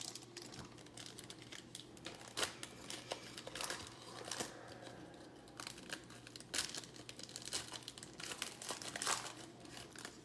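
Plastic trading-card pack wrapper being torn open and crinkled, with irregular crackles as the cards are handled.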